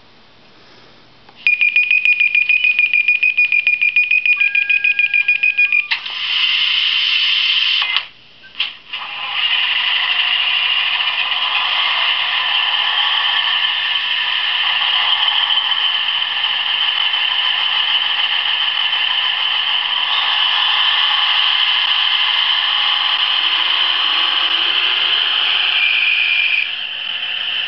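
Recorded Class 153 diesel multiple unit sounds from a DCC sound decoder, played through a model train's small speaker. A high pulsing tone runs for about four seconds and is followed by a burst of hiss. After a short break the engine sound starts about nine seconds in and runs steadily, changing slightly near the end.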